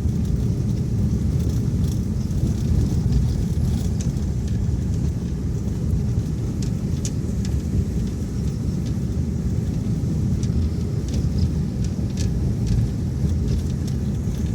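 Steady low rumble of a vehicle travelling along a road, with scattered faint clicks.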